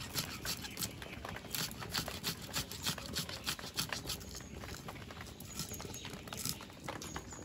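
A knife crunching through a hand-held cabbage head, slicing it into fine shreds in quick repeated cuts, about three or four a second.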